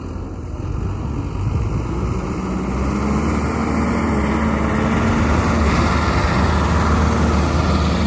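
Caterpillar 420F backhoe loader's diesel engine running hard as the machine drives toward the microphone, growing steadily louder.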